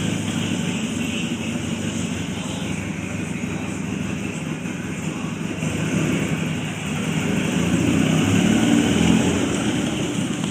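Barossa 250 cc quad bike engine running steadily, growing louder around eight to nine seconds in.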